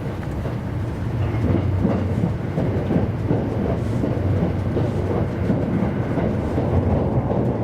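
E259 series Narita Express electric train running along the line, heard from inside a passenger car: a steady low rumble of wheels on rails with small irregular knocks.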